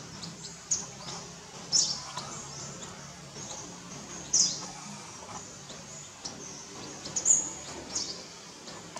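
Several brief, high-pitched chirping calls at irregular intervals, the loudest about seven seconds in, over a steady outdoor background hum.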